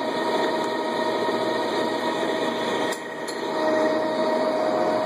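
Lodge & Shipley engine lathe running with its spindle turning: a steady geared whine over machine noise. The sound drops briefly about three seconds in, then comes back up.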